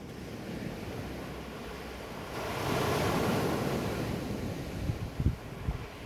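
Surf: a wave breaking and washing in, swelling about two seconds in and then fading, with a few low thumps of wind buffeting the microphone near the end.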